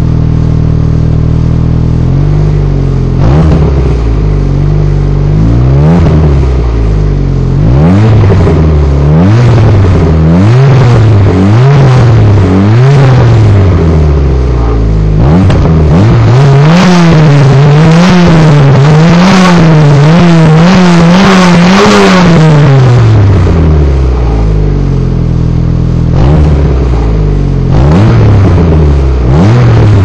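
Volkswagen Scirocco's 1.8-litre four-cylinder JH engine heard at the tailpipes of a Remus sport exhaust with a Group A pipe of about 63 mm from the catalytic converter back, idling and then revved with repeated blips of the throttle while standing still. A quick run of short revs comes just past halfway, then it settles back to idle with two more blips near the end.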